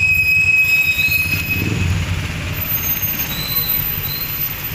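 Street traffic on a wet road: engines of passing cars and motorcycles running with a low hum and tyre hiss. A thin high whine carries on into the first two seconds and then stops.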